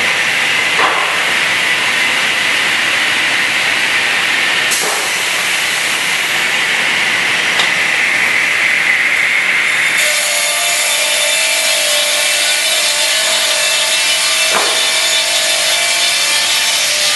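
Schwabedissen S 50 CNC beam saw running and cutting through panel board, a loud steady sawing noise. About ten seconds in the sound changes to a brighter hiss with a steady hum underneath.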